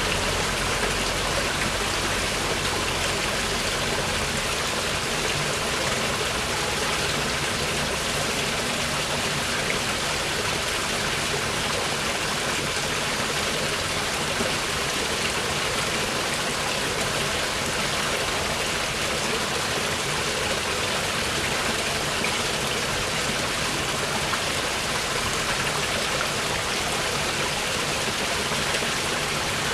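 Mountain river rushing steadily over its bed, a constant splashing hiss of water.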